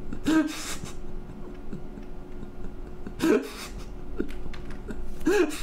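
A man laughing in three short chuckles spread across a few seconds, over a faint steady background.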